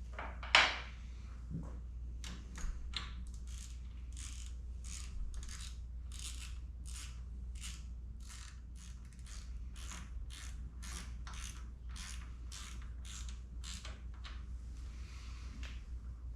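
Ratchet wrench being worked in steady back-and-forth strokes, about two a second, after one sharp clack near the start; the run of ratchet clicks stops a couple of seconds before the end.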